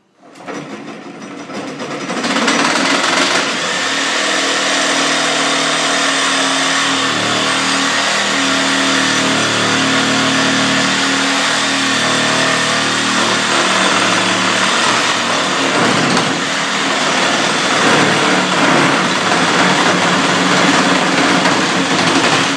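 Reciprocating saw (Sawzall) running and cutting through pallet wood. It builds up over the first two seconds, runs steadily, and stops abruptly at the end.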